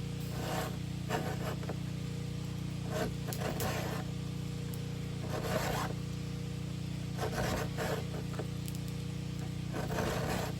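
Round file scraping across chainsaw chain cutters in short strokes, a stroke or two every couple of seconds, over a steady low hum.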